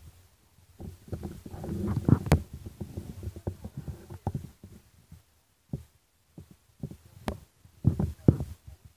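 Irregular low rumbling and thumping, with two sharp clicks about two and seven seconds in.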